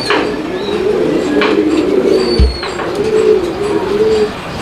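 Several domestic fancy pigeons cooing at once in a loft, a continuous overlapping wavering coo. There is a soft thump about halfway through.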